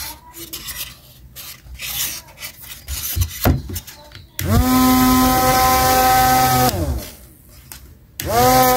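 Handling noise first: rubbing and a few clicks from hands on the foam hull. About halfway through, a small DC hobby motor with a plastic propeller spins up to a steady whine, holds for about two seconds, and winds down. It spins up again near the end.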